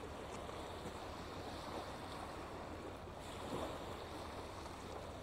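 Small waves lapping and washing over a pebble shore, a steady wash of water with a slight swell about three and a half seconds in.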